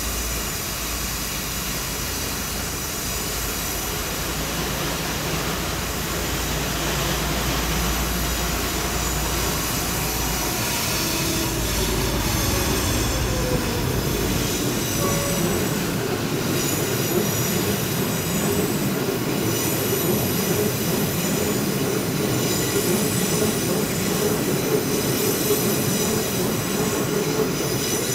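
A train running on the rails, with steady high-pitched wheel squeal. A low rumble underneath dies away about halfway through.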